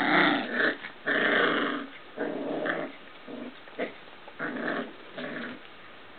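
Young puppies play-growling as they wrestle: a string of short, rough growls, loudest in the first two seconds, then softer and more broken.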